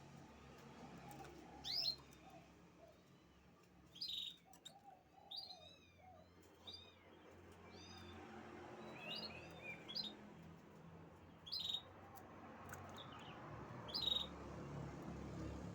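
Canary chirping: short, separate chirps and little groups of quick notes every second or two rather than a continuous song, over a faint low hum.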